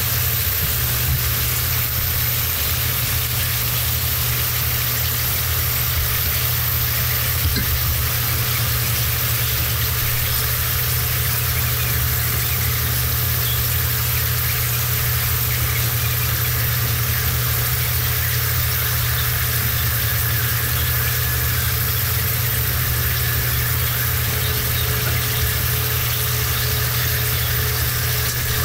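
Sliced sweet potatoes frying in hot oil in a pan, a steady sizzle, with a steady low hum underneath.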